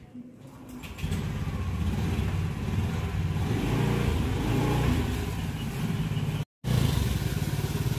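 A small motor scooter engine comes in about a second in and runs at low speed as the scooter is moved off. It drops out briefly near the end.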